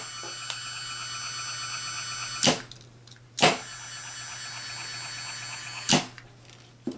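A small DC gear motor runs with a steady whine, is stopped, and is started again. Each start and stop comes with a sharp contactor clack. It runs for about two and a half seconds, falls quiet for under a second, then runs for another two and a half seconds before stopping about a second before the end.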